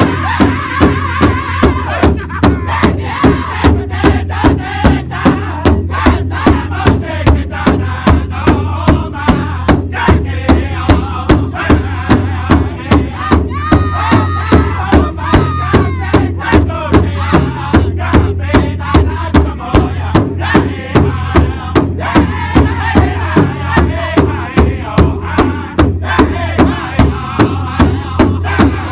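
Powwow drum group singing together in high, strained voices while striking one large shared powwow drum in a steady, even beat.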